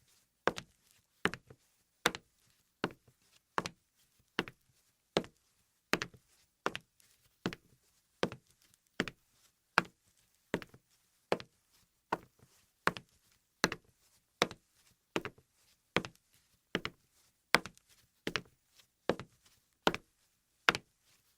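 Footsteps walking slowly on a hardwood floor: an even series of hard heel-and-toe taps, a little more than one step a second, in a small room.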